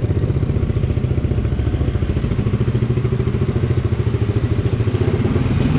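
Motorcycle engine running as the bike rides off at low speed, a steady rapid pulsing beat from the exhaust.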